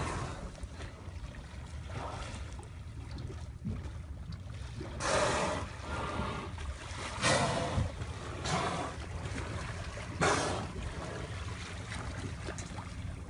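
Fishing boat's steady low rumble with water sloshing. Four short rushes of water or splashes come in the second half.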